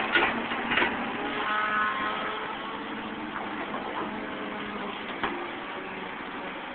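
Caterpillar 235 excavator working: diesel engine and hydraulic pump running steadily under load, with a brief faint whine about a second and a half in and a few sharp knocks from the bucket and loose linkage pins.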